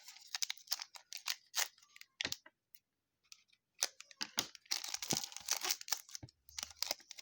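Crinkling and tearing of a trading-card pack wrapper, with scattered clicks and crackles as the cards are handled; the crinkling gets denser about halfway through.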